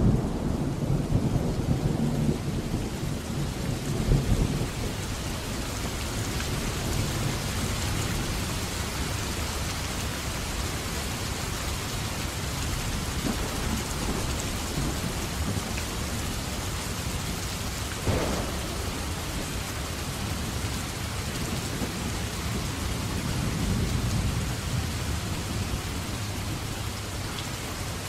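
Steady rain, with low rumbles that are loudest in the first few seconds and come again briefly later on.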